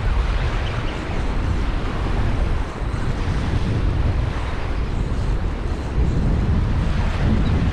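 Wind buffeting the microphone in a steady low rumble, over small waves washing onto the beach.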